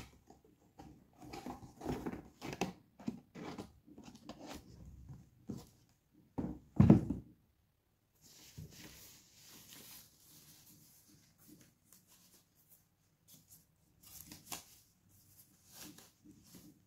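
Unboxing handling sounds: packaging and cables rustling and crinkling, with small clicks and knocks, and one heavy thud a little before halfway. After it, softer rustling with a few light taps.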